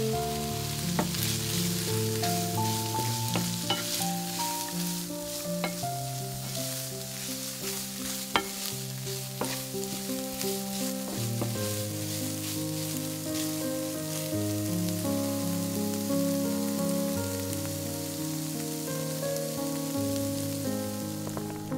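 Strips of ham, chopped onion, peas and sweet corn sizzling in a nonstick frying pan while a wooden spoon stirs them, with scattered clicks of the spoon against the pan.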